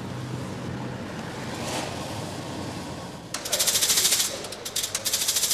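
Low steady hum inside a moving car, then about three seconds in a split-flap departures board starts clattering rapidly as its flaps flip over to update the flight listings, pausing briefly and starting again.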